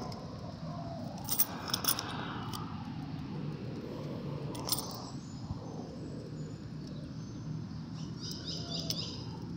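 Open-air plaza ambience: a steady low background hum, a few sharp clicks, and a short run of small birds chirping near the end.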